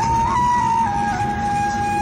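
Bansuri flute playing a slow melody of long held notes, stepping up early on and then holding one long note, over the low steady rumble of a moving vehicle.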